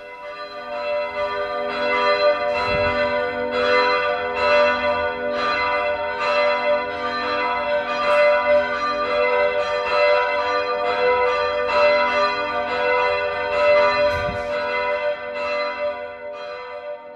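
Church bells ringing in a full peal, several bells striking one after another so that their long ringing tones overlap. The peal fades in at the start and fades out near the end.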